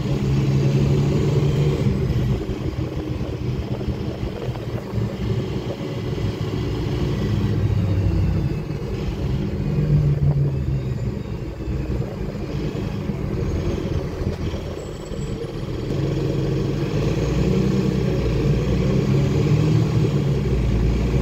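A 2009 Nova Bus city bus in motion, heard from inside the passenger cabin: a steady low rumble of engine and road noise. The engine's pitch and loudness rise and fall as the bus speeds up and slows.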